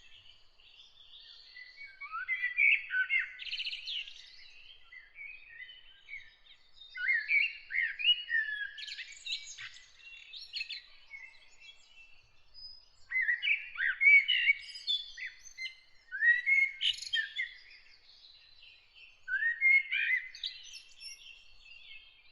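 Songbirds singing: phrases of quick chirps, trills and pitch glides come in bursts every few seconds, with quieter gaps between them and a faint high thin note held in the background.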